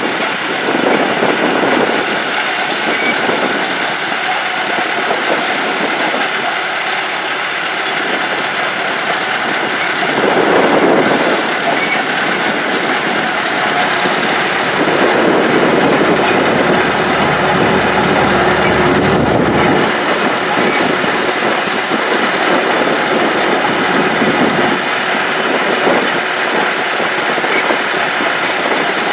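Caterpillar D7 bulldozer's diesel engine running steadily while plowing, swelling louder twice, about a third and about halfway through. A steady high whine sits over it throughout.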